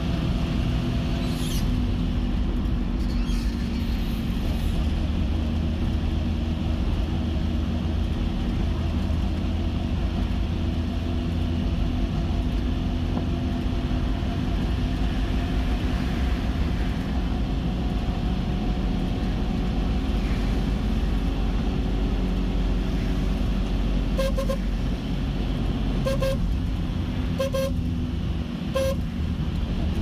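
Steady engine and road rumble of a moving car heard from inside the cabin, with four short car-horn toots spaced a second or two apart near the end.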